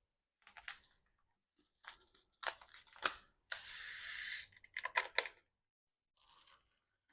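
Medicine boxes and packets being handled and sorted: scattered clicks and rustles, with about a second of continuous rustling or tearing of packaging near the middle.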